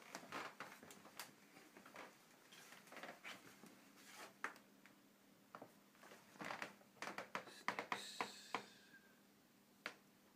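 Quiet handling noises while plastic live-catch mouse traps are being checked: scattered soft clicks and taps. Near the end comes a quicker run of sharper clicks with a brief high ring.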